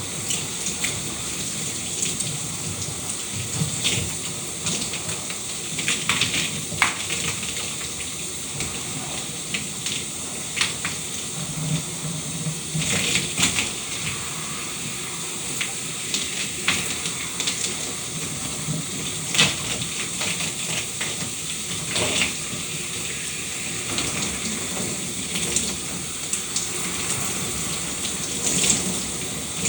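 Shower running: a steady hiss of spraying water, broken by irregular louder splashes of water hitting the surface below.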